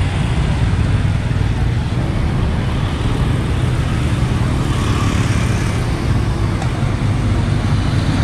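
Street traffic: motorcycles and minibuses running past on the road, a steady low engine rumble mixed with road noise.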